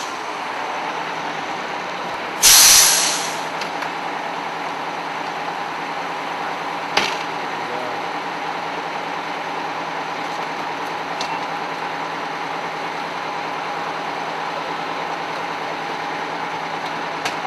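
Fire truck engine idling steadily, with a loud hiss of air released from its air brakes about two and a half seconds in and a short sharp hiss or click a few seconds later.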